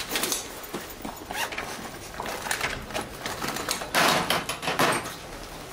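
A woman's uneven, breathy sobs, with a few rustles and bumps as she handles things at a metal locker; the loudest breath comes about four seconds in.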